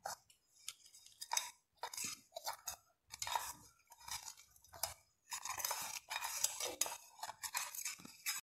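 Spatula stirring thick lemon pickle in a pan, with irregular scrapes and clicks against the pan that come thickest for a couple of seconds past the middle.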